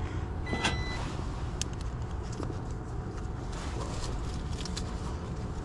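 A single short, high electronic beep from a multimeter about half a second in, heard while it reads 98 volts on a furnace flame sensor, a voltage that should be low. A steady low hum and hiss with a few faint clicks runs under it.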